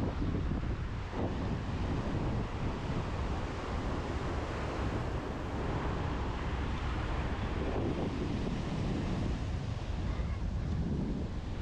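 Strong wind buffeting the microphone in a steady low rumble, with surf washing on the beach underneath.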